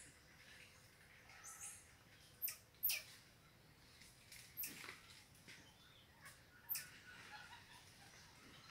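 Small monkeys calling: about six short, sharp, high-pitched squeaks spread irregularly, each one dropping quickly in pitch.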